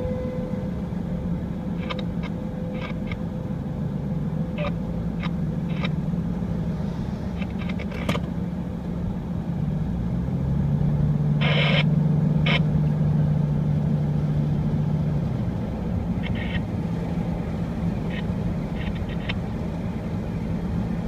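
Car engine and road noise from inside a moving car: a low steady hum whose pitch shifts as the car speeds up and slows, with scattered clicks and knocks. An outdoor warning siren's held tone fades away in the first few seconds.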